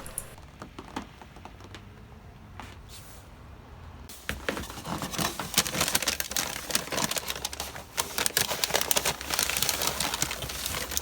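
A few faint clicks, then from about four seconds in a dense, irregular crunching and crackling, typical of footsteps on dry snow in deep cold.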